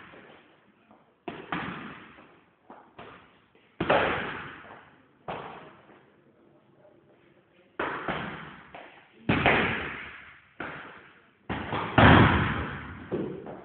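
Punches and kicks landing on a hanging heavy punching bag: a run of sudden, irregularly spaced thuds, each ringing on briefly in a small room, the loudest a little before the end.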